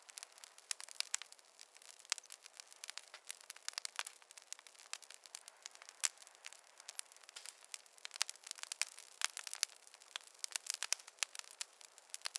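Campfire crackling: burning wood snapping and popping in quick, irregular clicks over a soft hiss.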